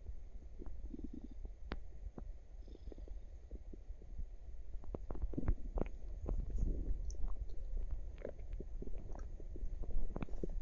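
A person's active stomach gurgling and rumbling, with many short pops and squelches over a low rumble.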